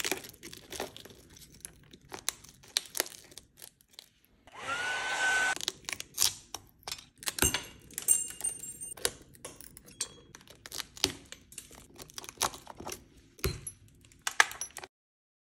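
Cracked iPhone back glass being tapped and chipped off with a small metal scraping tool: a run of sharp, irregular clicks, cracks and scratches of glass breaking away, with one scrape lasting about a second around five seconds in. The sound stops shortly before the end.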